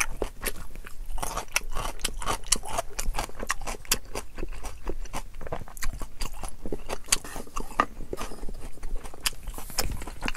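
A person chewing a mouthful of sushi, picked up close by a lapel microphone: a dense, irregular run of wet mouth clicks and smacks.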